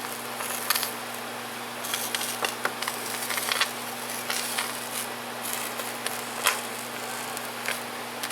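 Electrolysis rust-removal tank fizzing, with many small sharp crackles and pops from the hydrogen bubbles, over the steady electrical hum of the battery charger driving it.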